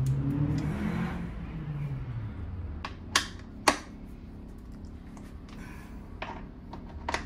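Sharp clicks and taps of a hand tool working the motorcycle's bolts as they are checked for tightness, two louder ones about three seconds in and a few more near the end. A low hum falls away during the first two seconds.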